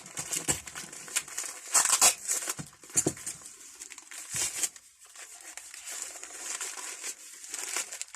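Packaging crinkling and rustling in irregular bursts as tools are handled out of a delivery box.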